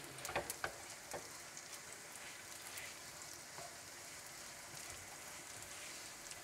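Rice and bulgur sizzling in oil in a frying pan as they are toasted and stirred, with a few quick scrapes and taps of a slotted spatula against the pan in the first second or so.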